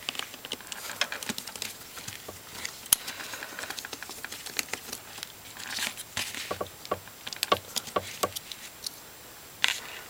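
Small clicks and scrapes of a small screwdriver working the tiny screws on a phone's metal frame, with rustling from handling the phone.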